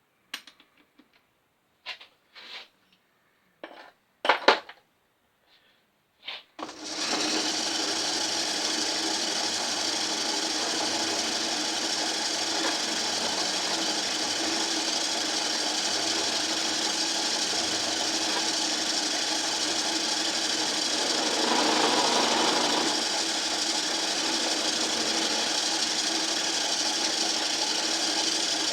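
An electric power tool starts about six seconds in and runs steadily, used to clean the removed door hinges, with a brief louder grinding stretch about two-thirds of the way through.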